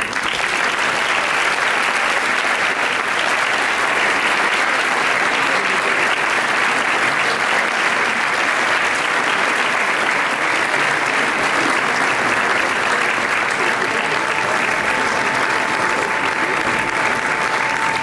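Audience applauding steadily. A single steady high tone comes in over the clapping about fourteen seconds in.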